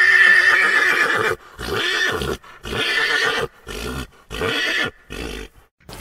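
Pony whinnying: one long whinny, then five shorter calls in quick succession with brief pauses between them.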